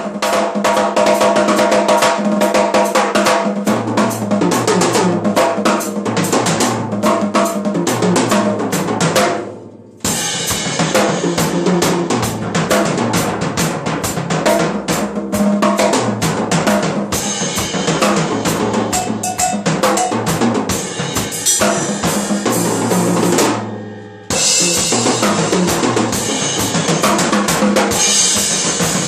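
Acoustic drum kit played in a fast, dense solo pattern. Twice the playing rings down for a moment and then comes back in suddenly: about a third of the way in and again past three-quarters.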